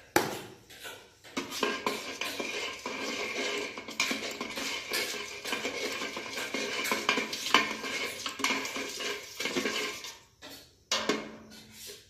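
Metal kulfi moulds clattering and knocking against a stainless-steel bucket, with ringing metallic scrapes. The moulds are being worked in a bucket of water to loosen the frozen kulfi. The clatter is dense, eases off near the end, then gives one last knock.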